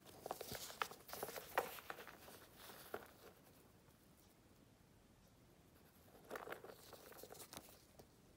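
Crinkling and rustling from handling a small leather pouch in lace gloves. It comes in two spells: a longer one at the start and a shorter one about six seconds in, with near quiet between.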